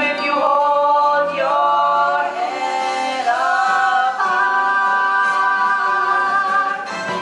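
Group of young voices singing together in a musical-theatre number, moving through a few sung phrases and then holding one long final note for about three seconds before it breaks off near the end.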